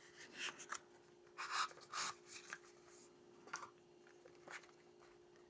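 Soft scraping and rubbing of a small cardboard box being opened and handled: about half a dozen short scuffs and rustles, with a faint steady hum underneath.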